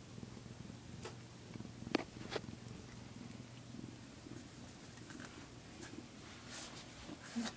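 Domestic cat purring close to the microphone, a steady low rumble that fades about four seconds in. A few sharp clicks sound about one and two seconds in.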